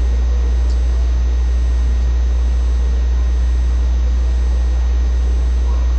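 A steady low hum that does not change and is the loudest thing throughout, over a faint even hiss.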